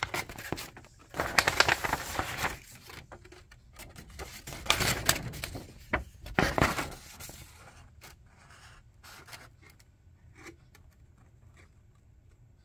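Paper instruction sheet rustling and crinkling as it is handled and opened, in several irregular bursts during the first seven seconds, then only faint rustles.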